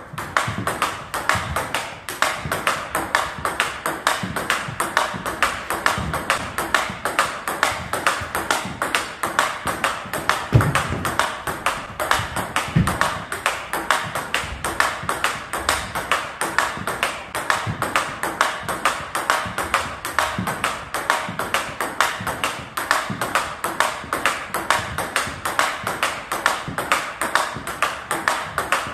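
Table tennis ball clicking off rubber paddles and the table in a fast, steady forehand rally, several hits a second.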